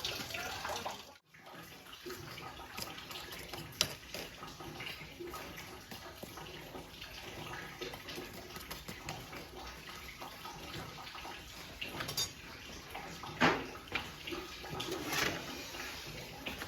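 Steady rain, with a few sharp clinks and knocks of dishes and cutlery; the sound drops out briefly about a second in.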